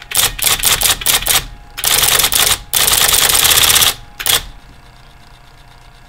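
IBM Electronic Typewriter 85 printing: a quick series of sharp typeball strikes, then two longer runs of dense rapid clatter and one last short burst about four seconds in, after which only a faint motor hum remains. The machine is running freely again after the cause of its jamming was cleared.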